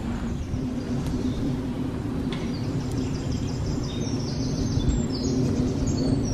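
Woodland birds singing: from about three seconds in, a songbird gives repeated runs of short high notes that step down in pitch, over a steady low rumble.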